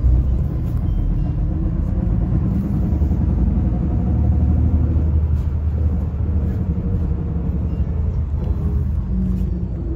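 Daewoo FX116 coach driving along, heard from a seat inside the cabin: a steady low engine and road rumble with a faint engine hum above it.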